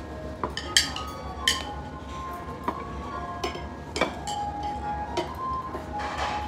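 Metal chopsticks clinking against ceramic bowls in about half a dozen sharp, scattered clicks during a meal, over soft background music.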